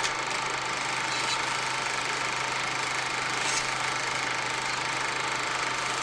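Steady mechanical hum with an even hiss, a motor or fan running at constant speed, with a faint click about three and a half seconds in.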